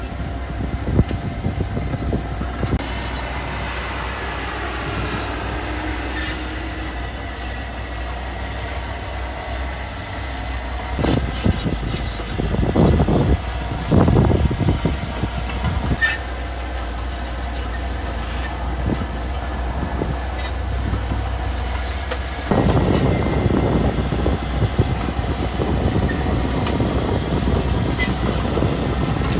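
Heavy diesel earthmoving machinery running steadily, with short metallic squeals and clanks now and then, two louder surges of engine noise around the middle, and a step up in loudness about three-quarters of the way through.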